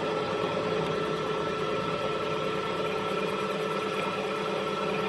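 Manual machine tool running steadily under power: an even motor-and-gear hum with constant tones.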